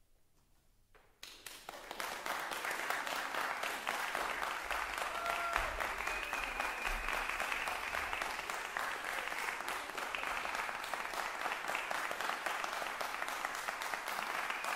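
Audience applause breaking out suddenly about a second in after a hush, then carrying on steadily.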